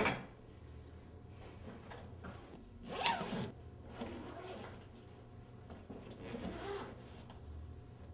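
Zipper on a large fabric duffel bag being pulled, in a short sharp run about three seconds in and a fainter, longer one about six seconds in. It follows the fading end of a thud as the bag lands on a bed.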